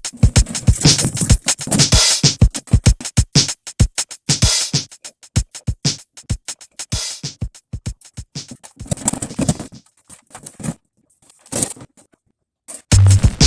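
Background music with a fast, steady drum-machine beat. It drops out almost to silence for about two seconds near the end, then comes back with a heavy bass beat.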